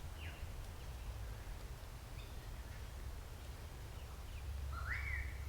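Faint outdoor ambience: a few short bird chirps and, near the end, one longer bird call that rises and then holds, over a steady low rumble.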